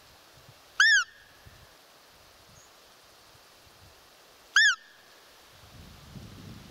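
Roe deer call (a hunter's squeak call) blown twice, about four seconds apart: two short, loud squeaks, each rising then falling in pitch, imitating a doe's squeak to lure a rutting roe buck.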